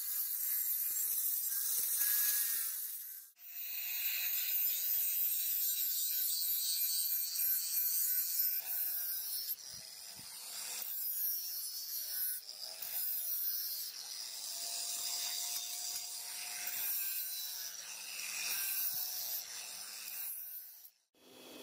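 Angle grinder with an abrasive disc grinding rust off the steel blade of a hand-forged cleaver: a steady hiss of abrasive on metal over the motor's whine, which rises and falls in pitch as the disc is pressed and moved. The sound cuts out briefly about three seconds in and again just before the end.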